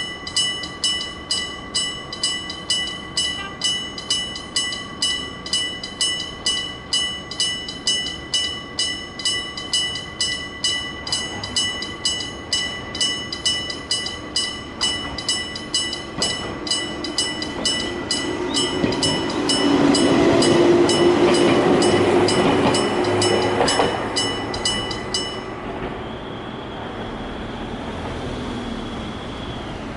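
Electric-bell (gong-type) level-crossing alarm striking rapidly and evenly, each strike ringing on. A Gakunan Railway electric train rumbles over the crossing, loudest a little past the middle. The bell stops abruptly a few seconds after the train has passed.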